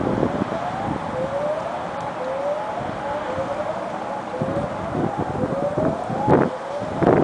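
Distant ASC E-Class EC-4 electronic warning siren sounding a whoop tone: a pitch that rises, drops back and rises again about once a second. Wind buffets the microphone, hardest about six seconds in.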